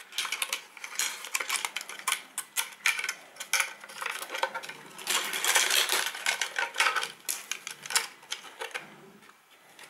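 Hands handling a 3D-printed PLA drawer while fitting a flat flex micro SD extension cable and its connector into it: a quick, irregular run of small plastic clicks, taps and cable rustles, dying away near the end.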